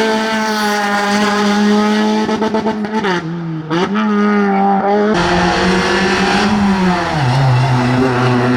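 Classic rally car's engine running hard at high revs, briefly lifting off about three seconds in and picking up again, then dropping in pitch near the end.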